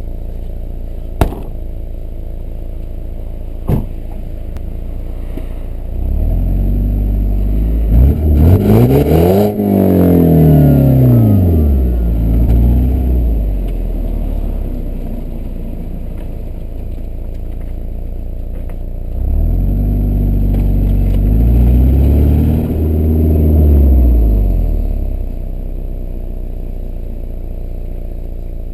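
BMW E81 120i with its stock exhaust: the 2.0-litre four-cylinder petrol engine idling, then revved twice. The first time is a run of quick blips climbing to a high rev about nine seconds in and falling back. The second is a slower double rev from about twenty to twenty-four seconds in, before settling back to idle. Two sharp clicks sound in the first few seconds.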